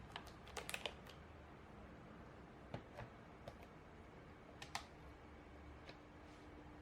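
Scattered light clicks and taps of small hard parts being handled: a quick cluster in the first second, a few more around three seconds in and a pair near five seconds, over a faint steady hum.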